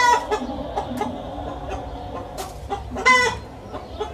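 Chickens clucking, with two loud, short calls, one right at the start and another about three seconds in.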